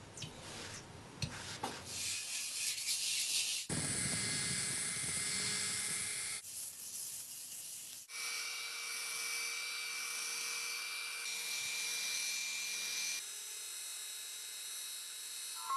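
Electric rotary polisher running with a foam pad, buffing polishing compound on a painted motorcycle panel: a steady motor whine with pad rubbing that changes abruptly several times. The first two seconds are quieter, with small clicks and rubbing.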